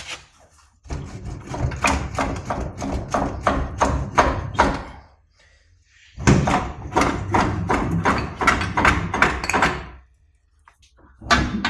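Hammering: a rapid run of sharp blows lasting about four seconds, a short pause, then a second run of about the same length.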